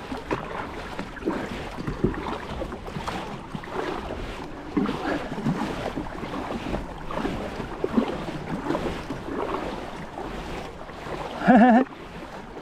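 Water sloshing and splashing around a kayak, with knocks from handling and some wind on the microphone. Near the end comes one brief, loud, wavering pitched sound.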